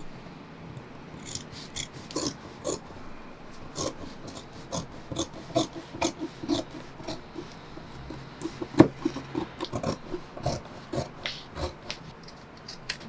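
Large fabric shears cutting through heavy blue cotton workwear cloth, which may be a bit stiff to cut: a steady run of short snips, about two a second, with one sharper, louder snip a little past two-thirds of the way through.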